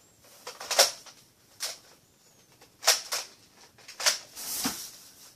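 Nerf foam-dart blasters being primed and fired: about six sharp clacks, the loudest about a second in and about three seconds in, with a longer scuffle near the end.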